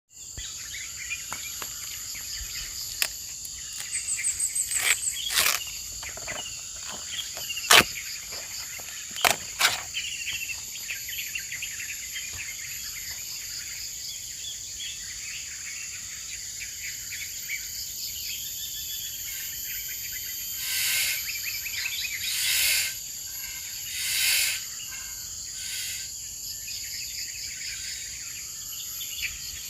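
Night insects trilling steadily and high, with scattered chirps and calls over them. A few sharp clicks come in the first third, and three louder rushing swells of about a second each come near 21, 23 and 24 seconds.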